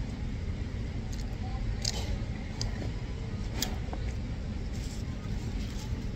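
Soft drink sipped from a paper fast-food cup, then chewing, with a few faint clicks over a steady low background rumble.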